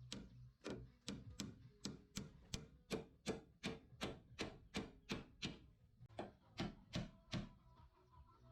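Hammer blows in a steady rhythm, about two to three a second, with a short break about six seconds in and a stop near the end.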